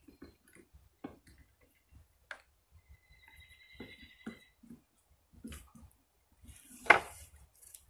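Ratchet strap on a beehive being worked loose: scattered light clicks and knocks, then one sharp, loud click about seven seconds in as the ratchet lets go.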